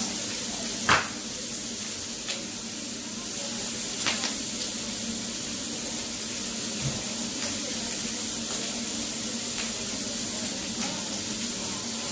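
Pork slices sizzling on a tabletop grill: a steady hiss, with a few sharp clicks of utensils, the loudest about a second in.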